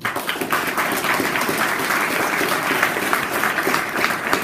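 Audience applauding, many people clapping at once, starting suddenly and holding steady.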